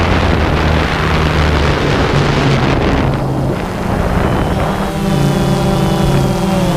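DJI Phantom 2 quadcopter's motors and propellers humming, heard through the on-board camera's microphone under heavy wind noise. About five seconds in the wind eases and the steady, layered whine of the motors comes through clearly.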